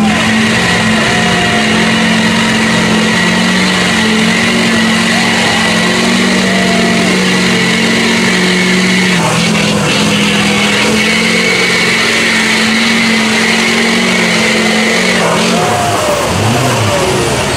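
Lifted Chevrolet Silverado mud truck's engine held at high revs as the truck churns through deep mud on big lugged tyres. The engine note stays steady, then breaks up and drops near the end.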